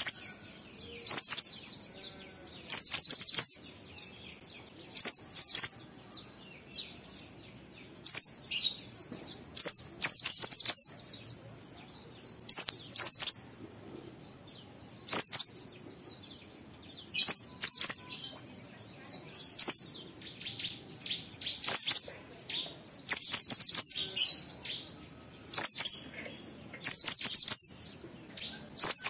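Pleci (white-eye) song in the 'ngalas' style: short bursts of rapid, high, chattering notes, each under a second long, repeating about every two seconds. This is a recorded lure, played to caged pleci to set them singing.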